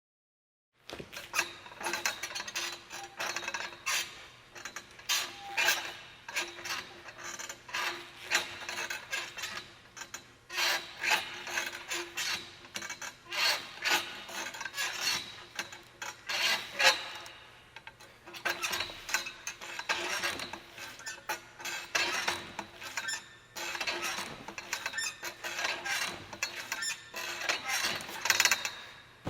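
Metal fittings of gymnastics rings squeaking and creaking in quick, irregular runs under a gymnast's weight, starting about a second in.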